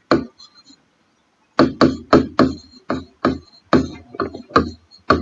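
Marker pen writing on a whiteboard: a quick run of short, dry taps and knocks as the letters are stroked on, about three a second, starting after a short pause of a second and a half.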